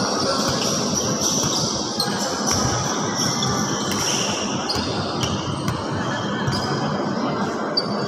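A basketball bouncing on an indoor court, with steady echoing gym noise and the scuffs and squeaks of players' shoes.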